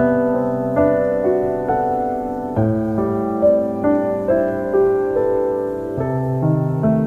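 Background piano music, slow and gentle, with notes struck about every half second over held chords.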